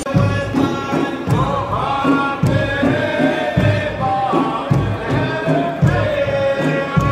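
A group of men chanting in unison over a steady beat of large frame drums, a traditional Saudi folk performance, with a drum stroke about every half second.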